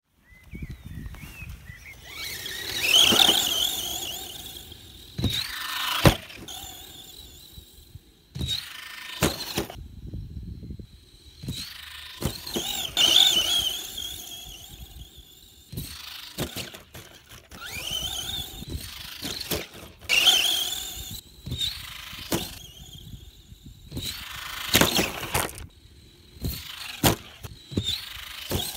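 16T brushless motor of a Tamiya TB-01 Levant XB 1/10 4WD RC stadium truck whining up and down in repeated fast passes every few seconds, with tyres hissing through grass. Between passes come sharp knocks, the loudest about six seconds in.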